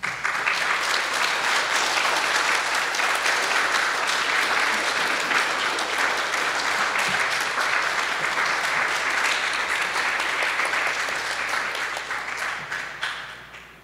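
Audience applauding, starting all at once and dying away over the last couple of seconds.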